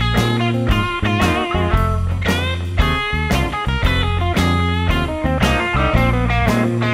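Background music with a steady beat and a held low bass line under a melody.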